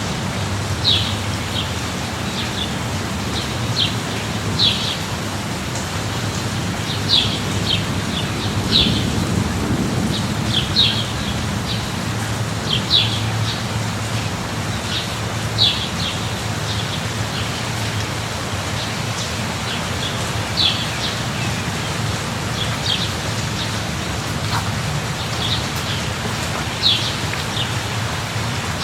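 Steady rain falling, with a low rumble underneath that swells about nine seconds in. Short bird chirps repeat every second or two over the rain.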